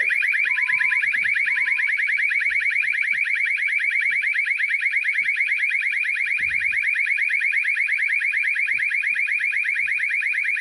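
Emergency exit door alarm set off by the door being opened: a loud, rapidly pulsing, high-pitched electronic tone that cuts off abruptly at the very end. Two short lower beeps sound about a second in.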